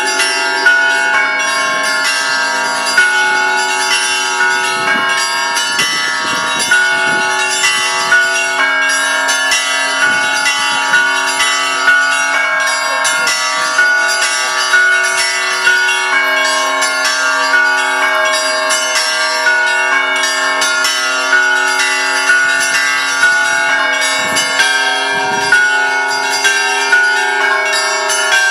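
Russian Orthodox church bells rung together in a continuous peal: many bells of different pitches ring at once, with an accented stroke about once a second.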